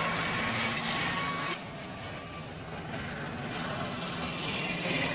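Street traffic: a steady wash of vehicle engine noise that drops in level about a second and a half in.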